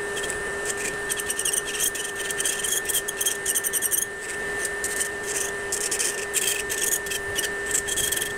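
Electric nail drill (e-file) running at a steady high-pitched whine while its bit grinds down gel on a fingernail, the grinding coming in quick, uneven strokes as the bit touches and lifts off the nail.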